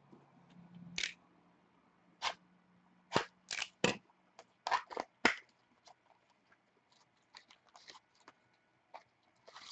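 Short sharp clicks and taps of trading cards and stiff plastic card holders being handled and set down on a table. There are about eight louder ones in the first five seconds, then softer scattered ticks.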